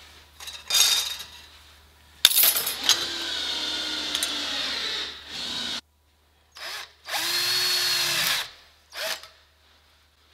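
Cordless drill running in several bursts as it drills through thin steel strip: a short burst, a long steady run of about three and a half seconds, then a shorter steady run after a sudden silence, with a few brief blips between.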